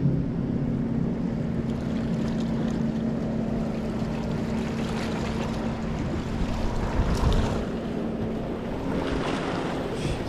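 A motorboat going by with a steady engine hum over rushing water and wind noise; the hum fades out near the end. The boat is running off plane.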